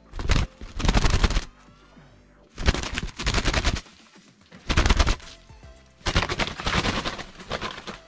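Doves flapping their wings in five loud bursts of rapid wing-clapping, each lasting about half a second to a second and a half.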